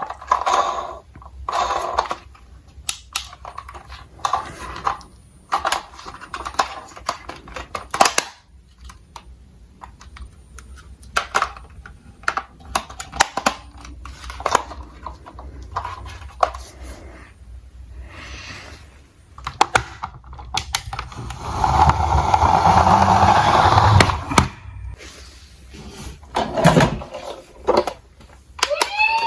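Small diecast toy cars being handled, with scattered sharp clicks and clatters of metal and plastic. About 21 seconds in there is a longer, louder rush of rattling noise lasting some three seconds.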